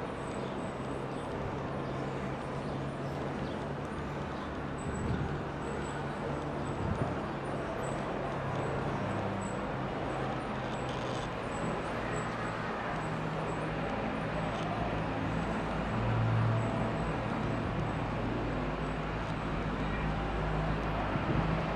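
Steady outdoor background noise: an even hiss with a low, steady hum underneath, growing slightly louder towards the end.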